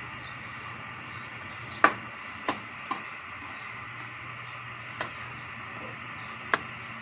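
Metal cooking spoon stirring chicken curry in a metal wok, clinking against the pan five times, the loudest clink just under two seconds in, over a steady faint hiss.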